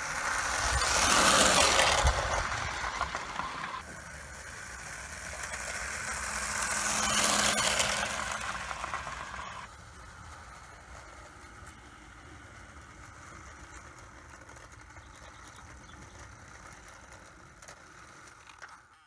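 Bassett-Lowke tinplate 0 gauge locomotive, converted to battery electric, running with its coaches on garden railway track: a rattling run of wheels on rail that swells and fades as the train passes close. This happens twice, each time cut off suddenly. Then a quieter, steady running sound follows as the train approaches from farther off.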